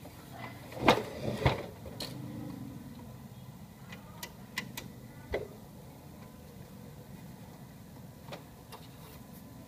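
Knocks and clicks from hands handling the plastic casing of an HP LaserJet Pro M225dw laser printer: two loud knocks about a second in, then scattered lighter clicks.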